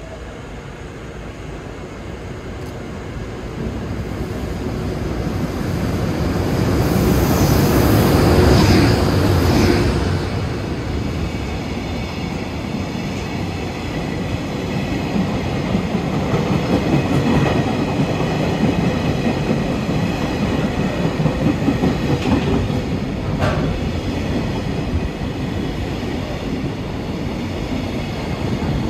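JR Freight EH200 electric locomotive hauling a container freight train through the station. The noise builds to its loudest about eight seconds in as the locomotive passes, then the wagons run past with a steady rumble of wheels on rail.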